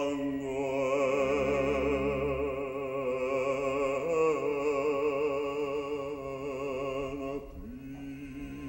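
Operatic bass voice holding a long sung note with wide vibrato over orchestral accompaniment, shifting pitch slightly about halfway through. The voice stops near the end, leaving the orchestra playing softly.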